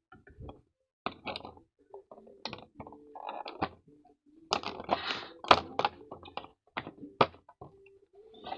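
Headphone box and packaging being handled: an irregular run of knocks, clicks and rustles, busiest and loudest about five seconds in.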